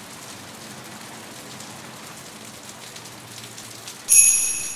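Steady rain falling. About four seconds in, a sudden high ringing tone sounds once and fades over the next second.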